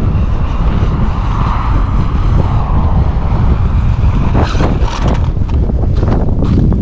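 Wind buffeting the microphone: a steady, loud low rumble. A few short knocks or scrapes come in the second half.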